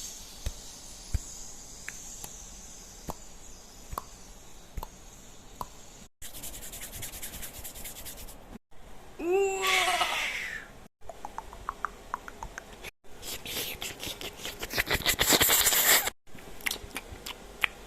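A string of short kitchen sound effects separated by brief silences: a steady high hiss with scattered clicks, then rapid ticking, a short squeal that falls in pitch, and a fast, dense clicking rattle.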